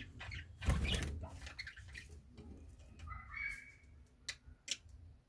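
Budgerigars chirping and chattering in short, scattered calls, with a few sharp clicks.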